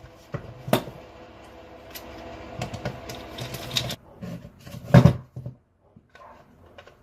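Clicks, knocks and clatter from the Porter-Cable Quicksand sander's parts being handled on the bench, with a quick run of clicks in the middle and one loud knock about five seconds in.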